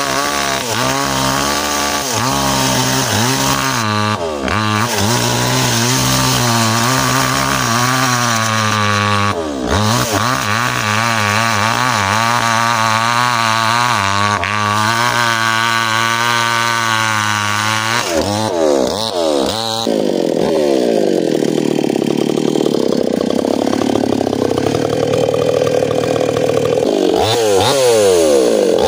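Small two-stroke chainsaw running at high speed while cutting into ironwood, its pitch wavering as the chain loads up and recovers. About two-thirds of the way in the engine note drops and changes, then rises again sharply near the end.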